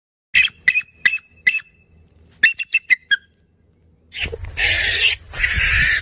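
Bald eagle calling: four short, high piping notes, then a quicker run of five. From about four seconds in, loud rough noise comes in two long bursts.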